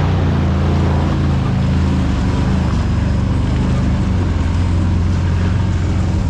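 Side-by-side UTV engine running steadily while driving a muddy, rocky trail, with tyre and chassis noise over it; the engine note shifts slightly about two and again about four seconds in.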